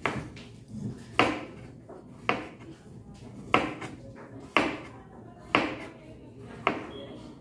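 A chef's knife slicing a peeled cucumber into rounds, the blade knocking on the cutting board at each cut: seven even knocks, about one a second.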